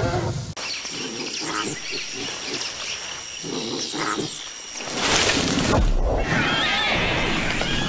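Sound-effect calls of a large dinosaur over forest ambience: a loud breathy snort about five seconds in, followed by wavering calls.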